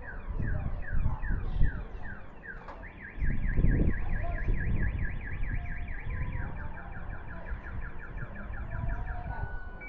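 Garbage truck's reverse-warning siren: a rapid repeating wail of short falling-pitch sweeps, about three to five a second, the signal that the truck is backing up. A low rumble runs underneath, loudest about three seconds in.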